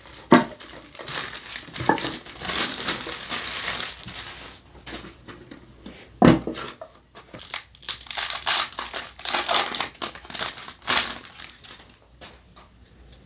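Plastic shrink wrap being torn off a card tin and crumpled in the hands, a dense crackling. A single sharp knock sounds about six seconds in, followed by more bursts of packaging crinkling that die away near the end.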